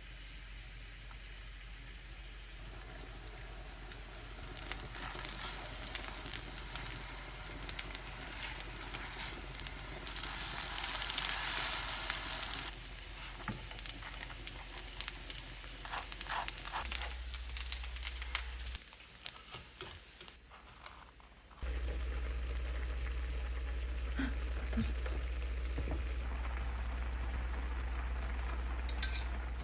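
Food frying in oil in a pan: a steady sizzle with fine crackles, loudest about ten to twelve seconds in, breaking off and picking up again a couple of times.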